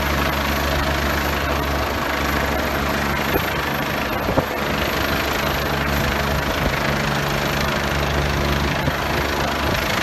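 Steady low engine drone under a dense, even hiss, with a brief knock a little over four seconds in.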